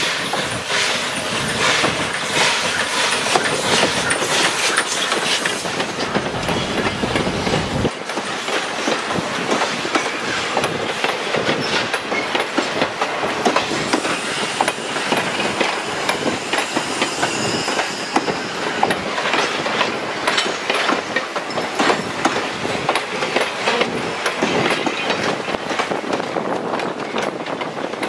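Arcade & Attica #18, a 2-8-0 Consolidation steam locomotive, running past with its train: a heavy low rumble for the first several seconds that cuts off abruptly, then steel passenger coaches rolling by with a steady clickety-clack of wheels over the rail joints.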